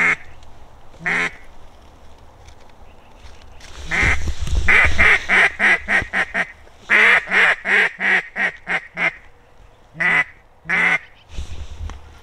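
Duck call blown in runs of loud quacks: a couple of single quacks, then two quick strings of about eight quacks each, then two more near the end.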